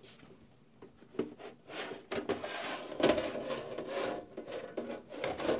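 The outer case of a Rigol DP832 bench power supply being slid off its chassis: a rubbing, scraping sound that starts after a couple of small clicks and grows louder about three seconds in.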